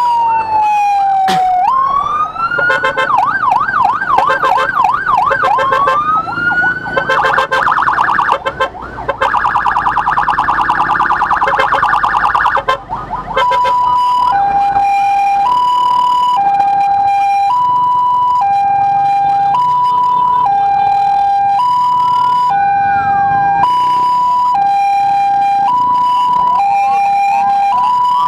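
Electronic emergency siren switching through its patterns: a slow falling wail, then a fast yelp, a rapid warble, and from about halfway a two-tone hi-lo that alternates roughly once a second.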